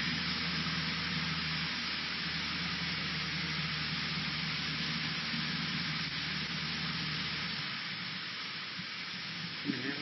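Cessna 152's four-cylinder Lycoming engine droning steadily in flight, heard from the cockpit under a strong steady hiss. About eight seconds in, the deepest part of the drone drops away.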